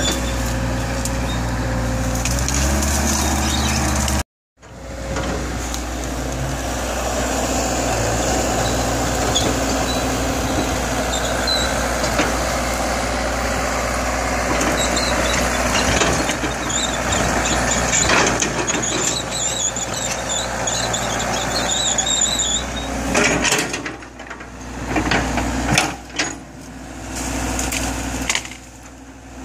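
Small CAT excavator's diesel engine running steadily under working load, with the rattle and scrape of its bucket pushing over tree trunks and branches and working soil. The sound drops out for a moment about four seconds in, and near the end it turns uneven, with knocks between quieter gaps.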